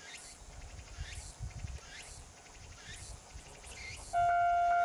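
Kanto Railway KiHa 532 diesel railcar approaching with a low rumble, while insects chirp in repeated falling trills. Near the end a loud steady tone suddenly cuts in and holds.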